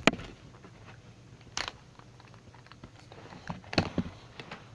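A few sharp knocks and clicks of things being handled and set down. The loudest comes right at the start, another about a second and a half in, and a small cluster near the four-second mark.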